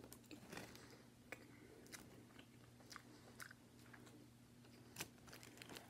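Very faint chewing of a soft-bread turkey sandwich: scattered small mouth clicks over a low steady hum.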